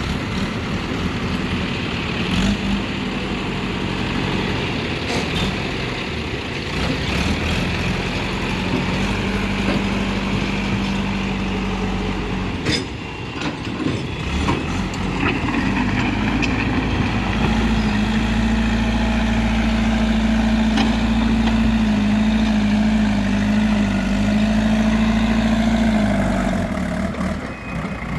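Heavy diesel engine running steadily. About halfway through it revs up and holds at the higher speed, then drops back near the end. A few short knocks are heard around the middle.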